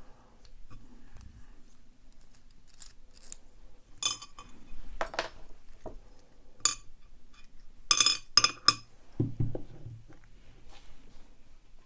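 Metal clinking and clattering of a laminated steel padlock and small hand tools being handled as the lock is taken apart. Light scattered clicks, with several sharp ringing clinks about four to nine seconds in.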